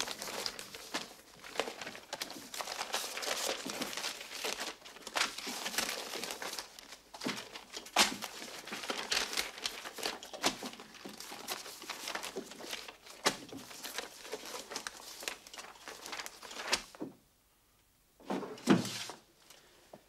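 Sheets of paper rustling and crumpling as they are handled and flung about, full of sharp crackles. Near the end it stops, and after a brief silence there is a single short knock.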